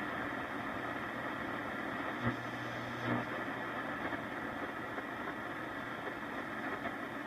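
1942 Zenith 8S661 console radio tuned between stations: steady static hiss over a low hum from its speaker, with two brief pops a little over two and three seconds in as the dial is turned.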